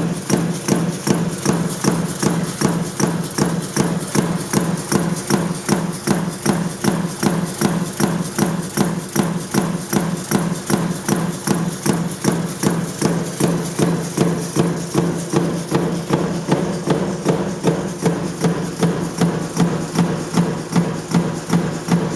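Mechanical stamping press running continuously, striking in a steady rhythm of a little over two strokes a second over a constant low machine hum.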